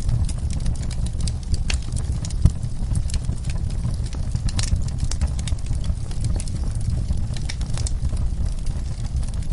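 Wood fire burning in a fireplace, crackling with irregular sharp pops over a steady low rumble of the flames.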